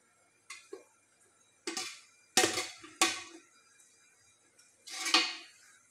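Steel dishes and utensils clattering against metal. About six knocks and scrapes, the loudest about two and a half and five seconds in.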